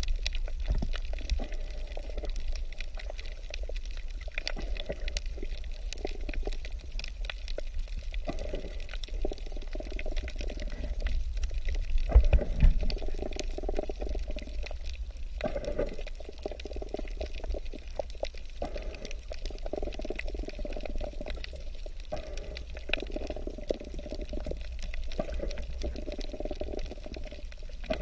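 Underwater sound of water moving past the camera over a coral reef: a steady low rumble with a gurgling wash that swells and fades, and scattered faint crackles. It swells louder briefly about twelve seconds in.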